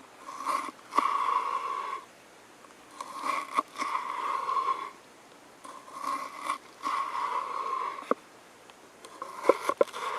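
Knife chopping vegetables on a cutting board, in crunching bursts of a second or two with short pauses between, plus a few sharp knocks of the blade on the board.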